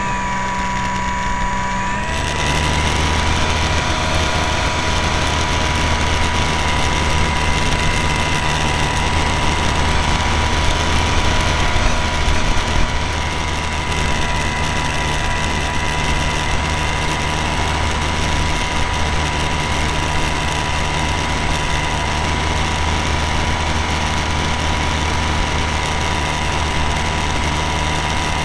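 A small plane's motor running steadily, recorded by a camera on board. About two seconds in the tone shifts, then it holds at a steady pitch.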